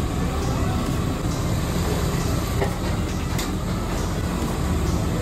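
Steady low background rumble, with a couple of faint knocks about two and a half and three and a half seconds in.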